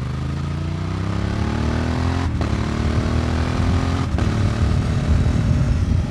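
Honda XL750 Transalp's parallel-twin engine through an aftermarket Akrapovic exhaust, accelerating hard with rising revs. Two quick upshifts, about two and four seconds in, each a brief cut in the exhaust note before the revs climb again.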